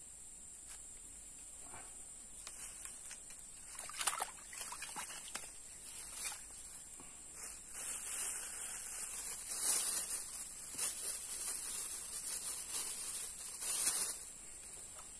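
A steady high-pitched insect drone runs throughout. Over it come irregular rustling and scraping noises, denser and louder from about halfway, stopping shortly before the end.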